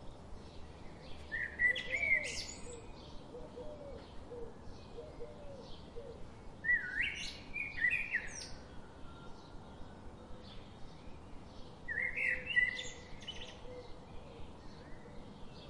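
Wild songbirds singing: one bird repeats a short, loud phrase of sweeping notes three times, about five seconds apart. Many faint, short chirps from other birds fill the gaps.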